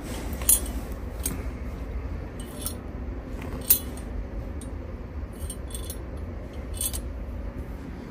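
Irregular light metallic clinks and ticks, a dozen or so, the sharpest about half a second and three and a half seconds in, as the steel parts of a homemade bicycle gear-changer are handled: a sprocket cassette pushed along its spring-loaded rod against welded nail arms. A low steady rumble runs underneath.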